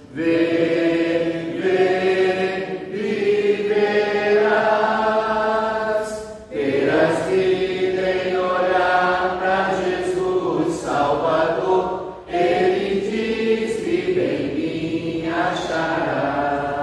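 A man singing a slow Portuguese hymn unaccompanied, in three long held phrases with short breaths between.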